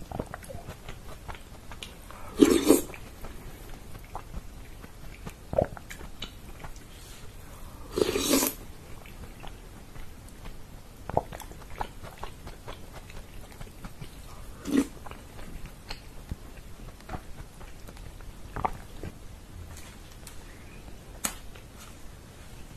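Close-miked eating: chewing and slurping spoonfuls of tomato sauce, with two louder slurps a few seconds apart and scattered light clicks.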